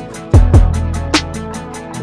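Background music with a steady beat and deep bass thumps.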